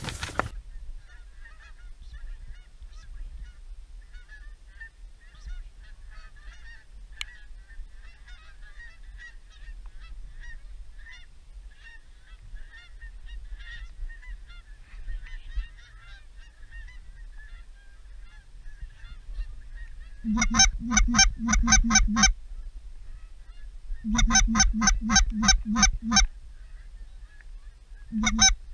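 Faint, distant goose chatter, then a hand-blown goose call giving loud, rapid honks and clucks, about five a second, in two runs of about two seconds each and a short burst near the end.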